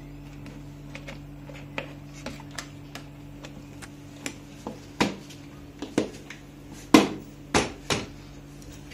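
Hard plastic body shell of a battery-operated toy ride-on motorbike knocking and clicking as it is handled and pressed into place on the frame. The knocks grow louder in the second half, the loudest about seven seconds in, over a steady low hum.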